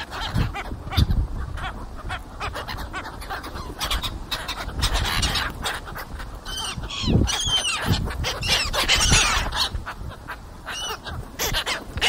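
Gulls calling: a run of short, arched cries, mostly in the second half, over continuous background noise.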